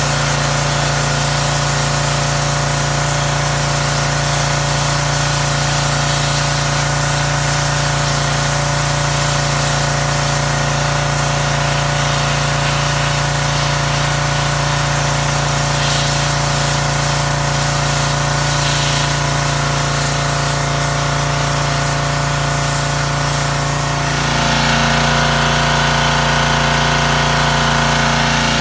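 Gas-engine pressure washer running steadily, its engine drone mixed with the hiss of the high-pressure water spray. About 24 seconds in the engine sound grows louder and its tone changes.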